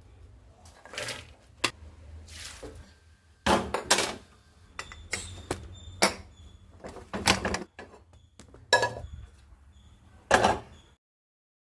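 Kitchen utensils clattering: about a dozen irregular knocks and clinks of metal vessels and cutlery, some leaving a short high metallic ring. The sound cuts off to silence about a second before the end.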